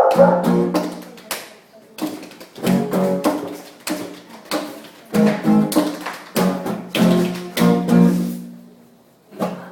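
Acoustic guitar strummed in short groups of chords, each stroke ringing out, with a brief pause near the end before the strumming picks up again.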